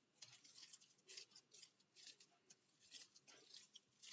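Faint, wet squelching of ground egg-carton paper pulp being squeezed and mashed by hand into white PVA glue, in repeated short squishes about two or three a second.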